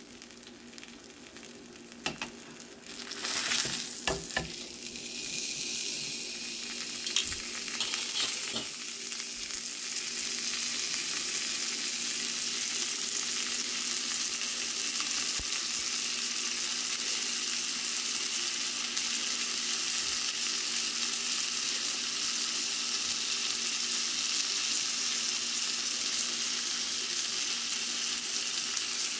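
King mackerel steak frying in butter and garlic in a nonstick skillet: a sizzle that is quieter at first and becomes steady from about ten seconds in. Several sharp clicks and knocks come in the first nine seconds.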